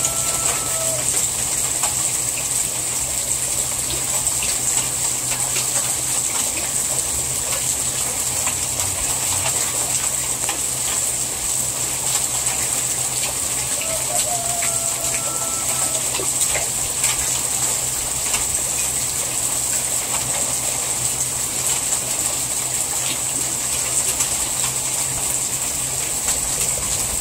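Heavy rain falling steadily, with water pouring off a roof edge and splashing onto a tarp-covered heap. A short high call sounds about 14 seconds in.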